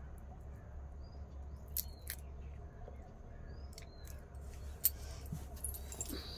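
Dry garlic skins being peeled off cloves by hand: a few sharp, sparse clicks and crackles, the loudest about five seconds in, over a steady low hum.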